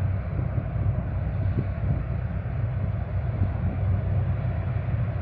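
A boat engine runs with a steady low drone, mixed with wind and water noise.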